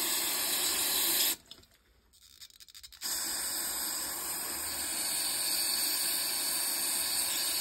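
An aerosol cleaner sprays through a red straw into the ports of a small weed eater carburetor, flushing gummed-up passages. It hisses steadily, cuts off about a second and a half in, and starts again after a short pause.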